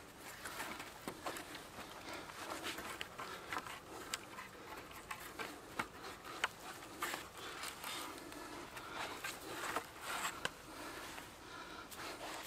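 Cord being wrapped and pulled tight around three bark-covered wooden poles to lash them together: scratchy rubbing of cord on bark, with many small clicks and knocks as the poles shift against each other.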